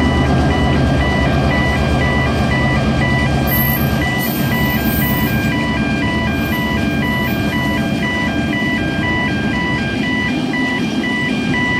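Level crossing warning bells ringing, an alternating two-note electronic chime about twice a second, over a heritage train passing. A 42-class diesel locomotive's engine rumble dominates the first few seconds, then gives way to the steady rolling wheel noise of the carriages.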